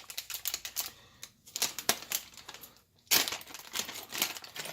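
Small hard objects clicking and clattering as clutter is moved around and set down by hand, with a louder run of clatter about three seconds in.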